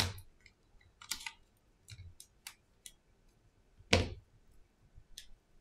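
Scattered small clicks and taps of hands and tools handling an opened iPhone 7 during a battery replacement, with the loudest knock about four seconds in.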